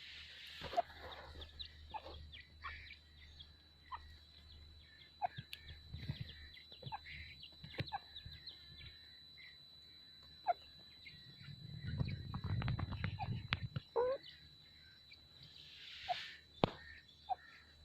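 Francolin (teetar) giving short, scattered calls that drop in pitch, about one every second or two, over a faint steady high whine.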